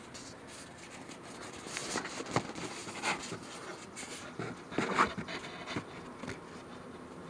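Handling noise from a hand adjusting the recording device close to its microphone: scattered scratching, rubbing and light taps, busiest from about two to five seconds in.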